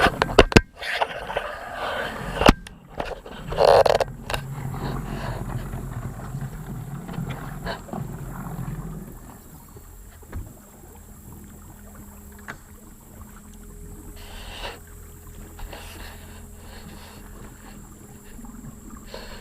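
Knocks, bumps and scrapes of handling in a small fishing boat just after a bass is netted, with a louder burst about four seconds in. After that it settles to a quieter stretch with a faint steady hum.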